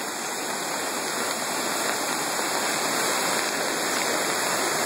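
A creek in flood rushing steadily, its fast, churning whitewater making an unbroken wash of noise.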